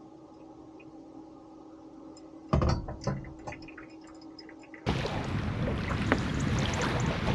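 Hot water poured slowly from a kettle into a pour-over coffee filter, faint under a steady hum, with a few clinks and knocks about two and a half seconds in. About five seconds in the sound changes abruptly to wind on the microphone and small waves washing on a pebble shore.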